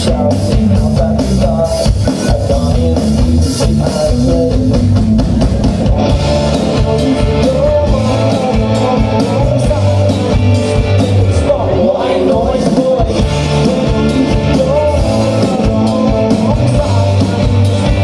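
A rock band playing live: two electric guitars, an electric bass and a drum kit, with a sung lead vocal over them. The cymbals thicken into a steady wash about six seconds in.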